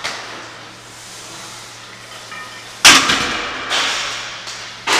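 Iron weight plates and barbells clanking in a weight gym: a sudden loud metallic clang with a ringing tail about three seconds in, a smaller clank shortly after, and another sharp clang near the end, over a steady low hum.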